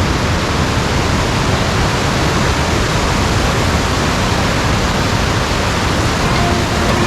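Loud, steady rushing of a waterfall in full flow, swollen by three days of heavy rain.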